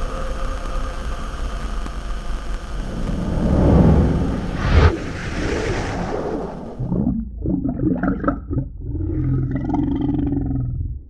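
Horror sound design: a low rumbling drone with a steady hum swells to a sharp crack about five seconds in, then gives way to warbling, wavering eerie tones that drop away abruptly at the end.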